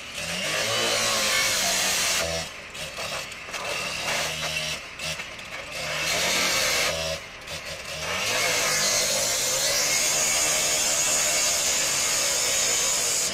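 Power cut-off saw cutting through the sheet-metal body of a crashed bus, biting in several bouts with short drops in between, then a long steady cut in the second half with a high grinding whine.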